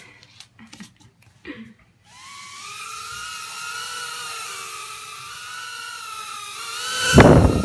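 Tiny Whoop Inductrix FPV micro quadcopter's motors and propellers whining steadily in flight, starting about two seconds in. A loud, short rush of noise comes near the end.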